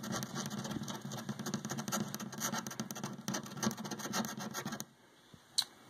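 Scratch-off lottery ticket being scratched with a small scratching tool: quick rubbing strokes over the coating, stopping about five seconds in.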